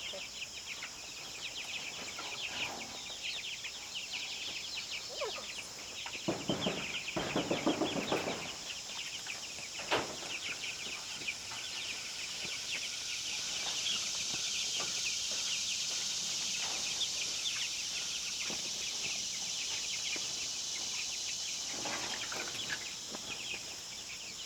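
A flock of Ranger meat chickens clucking and peeping busily throughout, over a steady high hiss, with some rustling about a quarter of the way in and a sharp click shortly after.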